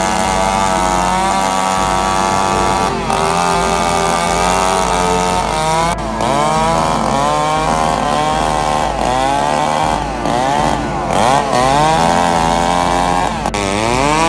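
Chainsaw engine cutting through a fallen tree trunk, running steadily at first and then repeatedly dropping in pitch under load and rising again, about once a second.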